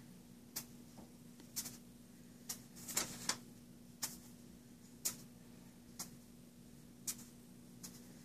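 Faint clock ticking, about one sharp tick a second, with a couple of extra clicks around three seconds in, over a steady low hum.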